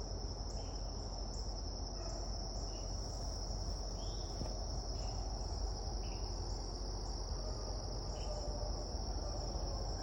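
Insects trilling outdoors: one continuous high-pitched trill, with another insect chirping in short, evenly spaced pulses about one and a half times a second.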